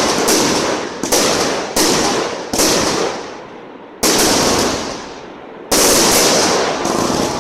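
Aerial fireworks shells bursting overhead: about six loud reports in quick succession, each trailing off in a crackling decay, with a short lull after the fourth.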